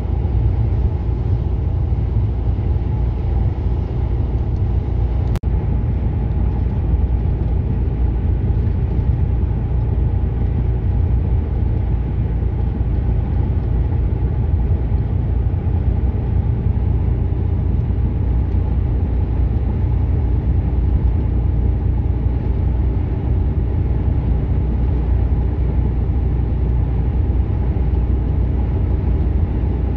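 Steady drone of a lorry's engine and tyres at motorway cruising speed, heard inside the cab. There is one sharp click with a brief drop in level about five seconds in.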